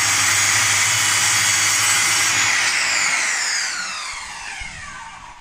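Corded circular saw cutting through a particleboard IKEA cabinet panel to shorten the cabinet. About two and a half seconds in the trigger is released and the blade's whine falls in pitch and fades as it spins down.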